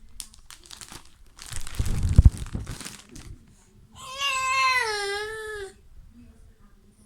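An adult's loud sneeze, then about two seconds later a baby's startled cry: one long wail that falls in pitch at the end.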